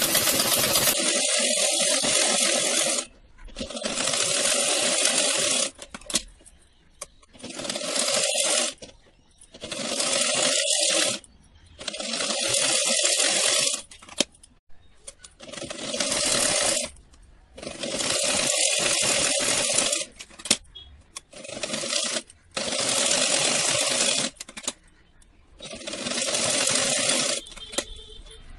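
Sewing machine stitching through two layers of thick cloth at its longest stitch setting, running in short spells of a couple of seconds that stop and start again about nine times as the cloth is guided and repositioned.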